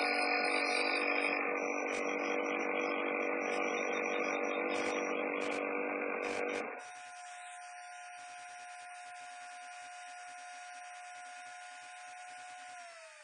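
Held electronic chord of several steady buzzing tones, typical of a slideshow's synthesizer soundtrack. The chord drops sharply in level about seven seconds in and continues softer.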